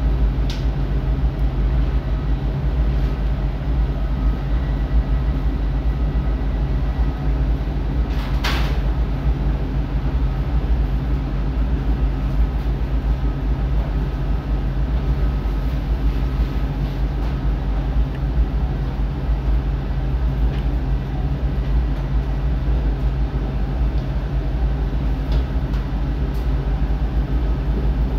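A steady, loud low rumble of machinery or wind noise with faint steady hum tones above it, and one brief sharp click about eight seconds in.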